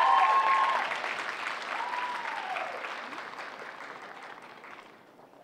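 Audience applauding, with a couple of whoops from the crowd, the clapping loudest at first and dying away over the last couple of seconds.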